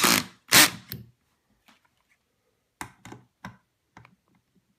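A cordless drill driving a machine screw into the aluminium stand cuts off right at the start, with a brief loud burst about half a second in. After that come a few faint clicks and taps of handling.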